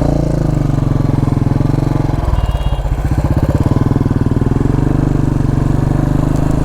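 Motorcycle engine running at low speed while riding off-road over rough ground. Its pitch dips about two seconds in, then picks up again.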